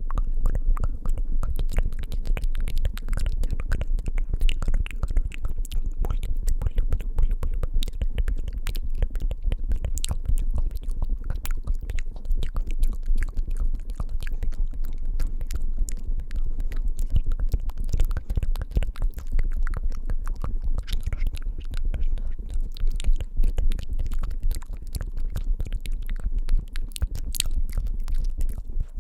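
Close-miked ASMR trigger sounds: fingers tapping and rubbing right on the microphone, with wet mouth clicks. It is a dense, unbroken run of sharp clicks over heavy low thuds.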